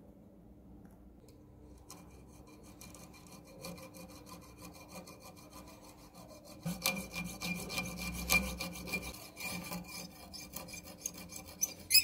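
A hacksaw blade cutting through a small piece of wood held in a vise, with fast back-and-forth rasping strokes that get louder about two-thirds of the way through. A single sharp click comes right at the end.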